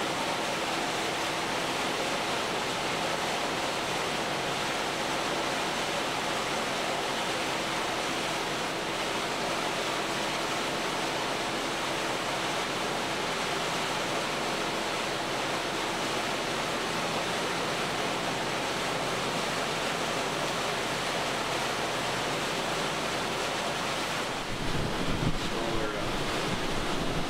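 Steady rushing noise of a boat running underway, with a faint steady hum. Near the end it turns louder and deeper as wind buffets the microphone.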